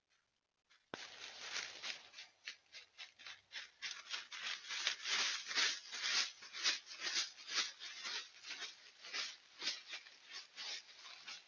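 Dry fallen leaves crunching and rustling under coyotes' paws as they walk and root through the leaf litter: quick, irregular crackles that start abruptly about a second in.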